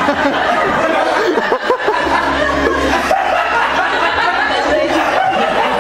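Audience in a room laughing together, a continuous, dense mass of laughter with voices mixed in.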